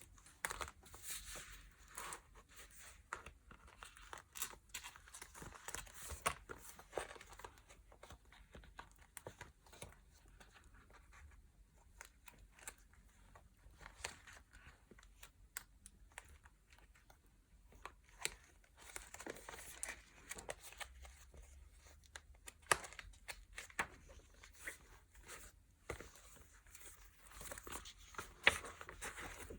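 Packaging being handled by hand during unboxing: intermittent rustling and crinkling with small taps and clicks, in several short bouts.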